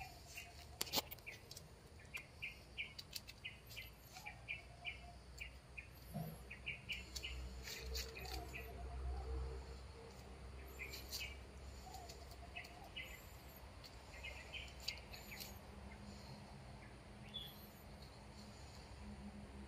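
Small birds chirping: short high chirps in quick runs of several, repeating on and off, with a low rumble underneath.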